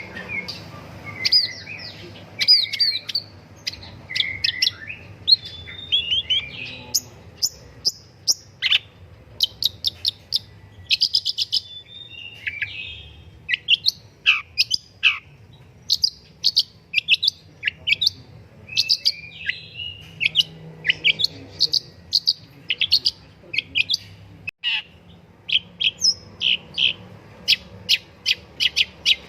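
Long-tailed shrike (pentet) singing busily: quick runs of short, high, sharp chirps broken by raspier phrases and a few downward-sweeping notes.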